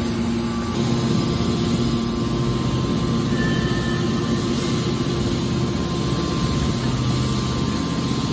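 Hydraulic scrap metal baler running: the steady hum of its electric motor and hydraulic pump, with a deeper drone joining about a second in as a hydraulic cylinder swings the hinged lid over the charging box.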